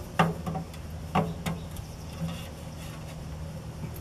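Knocks and light clanks of a metal direct-vent heater pipe being handled and fitted into the wall opening. There are about five in the first two and a half seconds, the loudest just after the start and about a second in, over a steady low hum.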